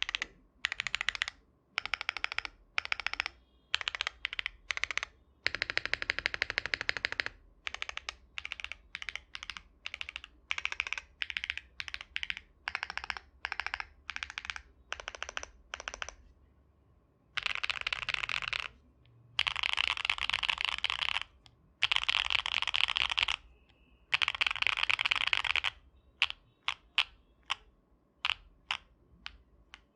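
Mode Envoy mechanical keyboard with MMD Princess tactile switches, GMK keycaps and an aluminium plate being typed on. Short bursts of rapid keystrokes with pauses give way to four longer fast runs past the middle. Near the end come single separate key presses, about two a second.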